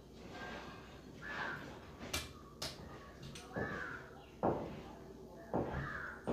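Crows cawing from time to time, harsh calls falling in pitch, about one every two seconds. Two sharp clicks come a little over two seconds in.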